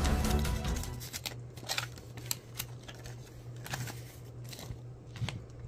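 Background music fades out in the first second, then scattered light clicks and taps sound over a low steady hum.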